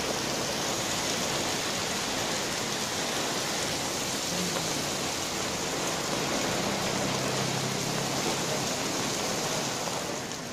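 Heavy rain pouring steadily onto a wet street. A low engine hum from a passing motor scooter rises out of it about two-thirds of the way through.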